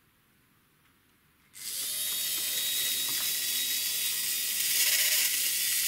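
The electric motor and gears of a Hornby Dublo Co-Co motor bogie start suddenly about a second and a half in and run on the test leads with a steady whirring whine, the wheels spinning while a screwdriver is held in the traction-tyre grooves to clear out old hardened rubber.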